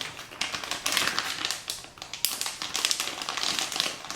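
Plastic packaging being handled: a run of irregular crinkles, clicks and rustles as fishing tackle in its packets is picked up and moved about.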